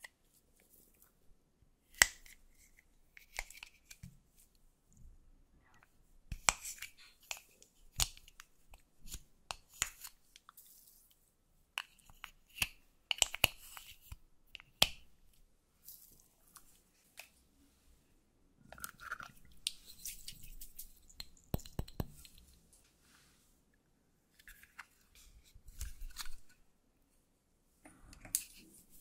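A small metal spatula scraping and digging pressed powder makeup out of a plastic pan, close up, with scattered sharp clicks of the tool against the pan and short stretches of gritty scraping and crumbling.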